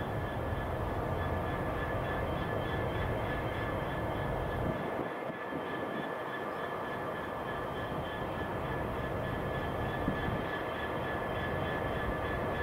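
A Class 66 diesel locomotive's two-stroke V12 engine running steadily, a low drone with a thin, steady high-pitched whine above it. The low rumble briefly drops away around five seconds in, then returns.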